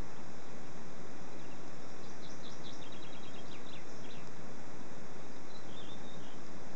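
Steady hiss of microphone noise, with a bird's quick run of short high chirps about two seconds in and a brief high call near six seconds.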